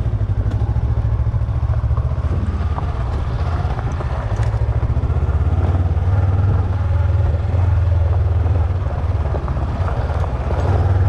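Honda CB500X motorcycle's parallel-twin engine running steadily with an even, fast pulsing beat as the bike is ridden slowly along a dirt track.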